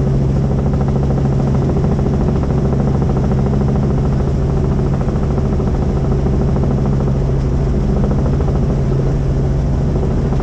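Helicopter running steadily in flight: a constant engine drone with the fast, even chop of the rotor blades.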